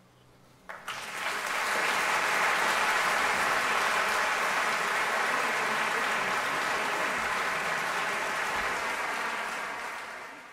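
Concert audience applauding at the end of an orchestral piece, the clapping breaking out about a second in after a brief hush, holding steady and fading out near the end.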